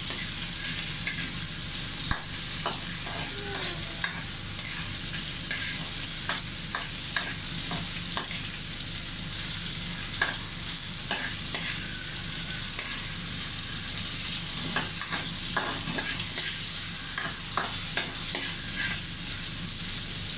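Sliced green tomatoes and ginger sizzling in hot oil in a wok, with a spatula scraping and knocking against the pan at irregular moments.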